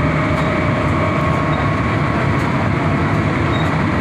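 Steady cabin noise of a city transit bus in motion: a continuous low rumble of engine and road, with a faint steady whine above it.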